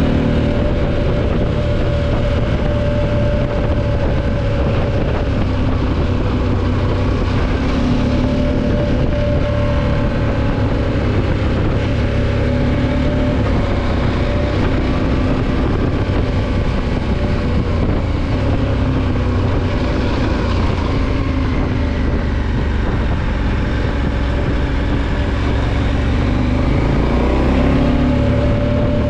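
Motorcycle engine running under way on a dirt track, a steady engine note that rises and falls gently in pitch with the throttle.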